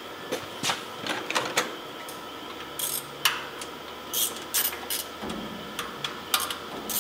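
Hands working on the engine under the open hood of a 1969 Chevy C10: scattered metallic clicks, taps and light rattles of parts being handled, with a few short hissy bursts.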